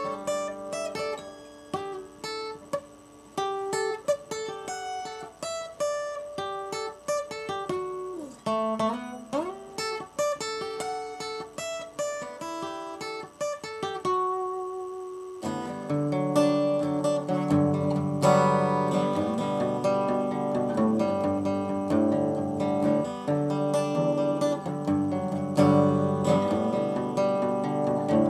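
Acoustic guitar played solo: single picked notes with a few sliding notes through the first half, then fuller, louder strummed chords from about halfway through.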